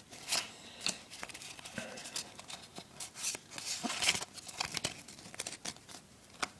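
Foil booster-pack wrapper of Pokémon trading cards crinkling and tearing as it is handled and opened, a run of irregular crackles and ticks.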